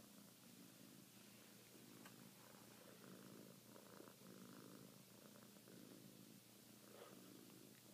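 Sphynx cat purring faintly and steadily while kneading a blanket, with a couple of faint clicks.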